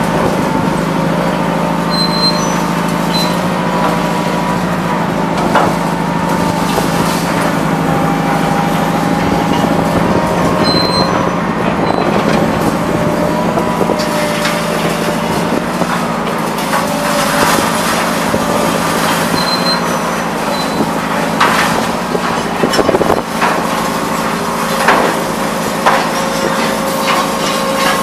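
Heavy scrap-yard machinery, a grapple material handler at a metal shredder, running with a steady drone. Scattered metal clanks and knocks from the scrap being handled come more often in the second half.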